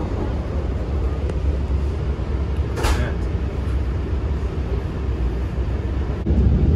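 Steady low rumble of an LIRR C3 bi-level commuter train running along the track, heard from inside the coach. There is a brief hiss about three seconds in, and the rumble grows louder near the end.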